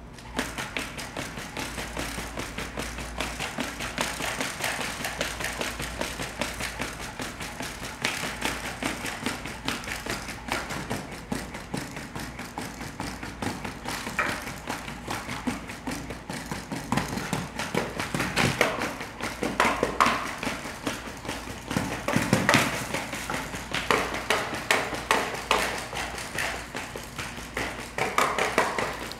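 Solo12 quadruped robot's feet tapping rapidly and unevenly on foam floor mats and wooden boards as it trots and steps, with louder knocks a little past the middle.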